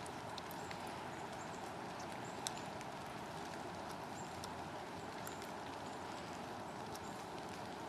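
Puppy gnawing on a stick: scattered sharp clicks and cracks of teeth on wood, the strongest about two and a half seconds in, over a steady background hiss.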